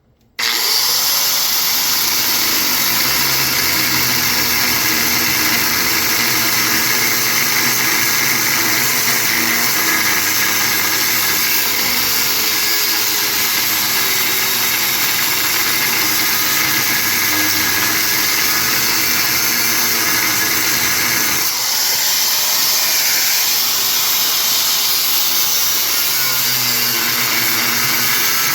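Angle grinder starting up and cutting into the metal housing of a large electric motor to take its top off: a loud, continuous grinding whine whose pitch sags and recovers as the disc bites. About 21 seconds in the sound briefly shifts, then settles back into the cut.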